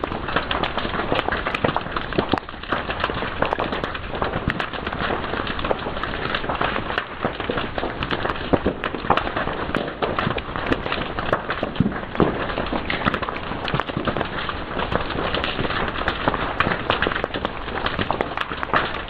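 Fire crackling and popping: a dense, irregular run of small sharp pops and snaps over a steady hiss.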